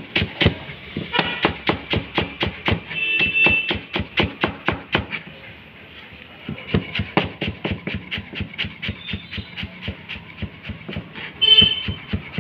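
Kitchen knife rapidly chopping fresh coriander leaves and stems on a cutting board, a steady run of quick blade strikes at about four to five a second, with a brief pause around the middle.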